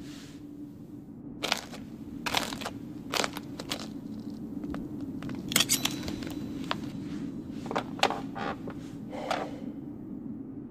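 Sparse handling Foley: light rustles, clicks and small knocks as a wooden chair and a piece of knitting are handled, over a steady low hum.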